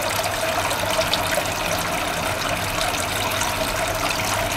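A stream of water pouring steadily into the tank of a home recirculating aquaculture system, splashing and churning the surface.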